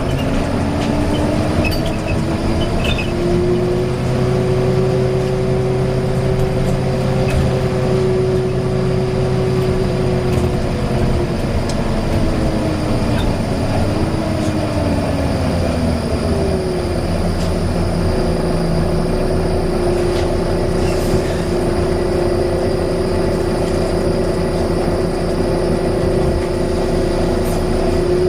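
Volvo B9TL double-decker bus whining loudly as it drives over a steady engine rumble. The whine climbs in pitch over the first few seconds, holds steady, dips and climbs again midway, then holds steady once more.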